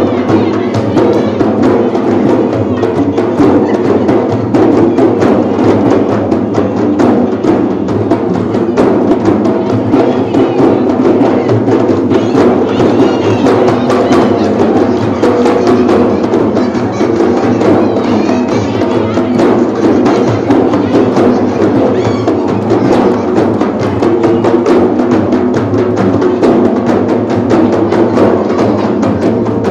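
A group of large hand-held frame drums (rebana) beaten together in a dense, steady rhythm, with no break.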